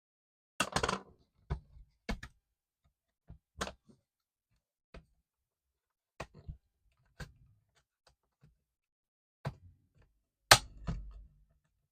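Sharp clicks and light knocks, about a dozen at irregular intervals, from laptop parts and tools being handled while the laptop is taken apart. The loudest knock comes near the end.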